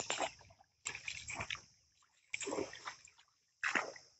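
A wooden paddle dipping into and pulling through calm canal water from a small boat, splashing with each stroke, about four strokes roughly a second and a half apart.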